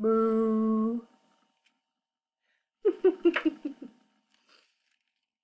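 A woman imitating a cow, one long, steady "moo" lasting about a second. About three seconds in comes a short burst of laughter.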